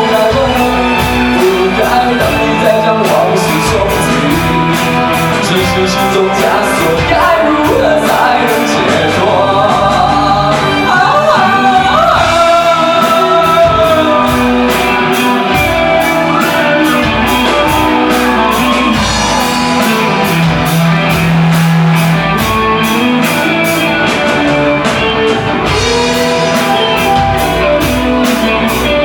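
Live rock band playing in a large hall: a singer over electric guitar, bass and drums, with a steady beat.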